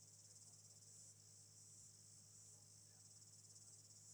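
Very faint, steady high-pitched trill of crickets over a low hum.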